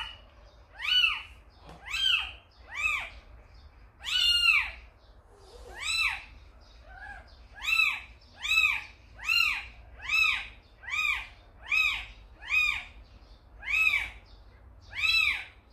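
Tiny kitten mewing over and over, about one high-pitched cry a second, each rising and then falling in pitch: the persistent distress call of a very young kitten left on its own.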